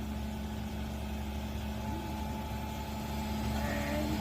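Heavy machinery running steadily, most likely the excavator's diesel engine: a constant low hum with a steady tone.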